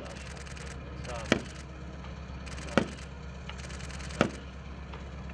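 Single gunshots, four sharp cracks evenly spaced about a second and a half apart, each with a short echo, over a steady low rumble.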